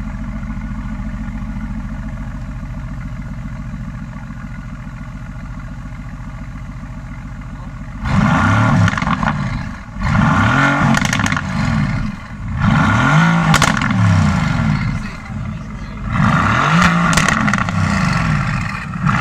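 Mercedes-AMG GT's twin-turbo V8 idling steadily at a standstill, then, from about eight seconds in, blipped in short revs every two to three seconds. Each rev rises and falls, with exhaust crackles as the revs drop.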